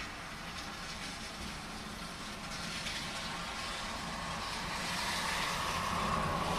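Heavy rain with a car approaching on the wet road, its tyre hiss swelling and loudest near the end.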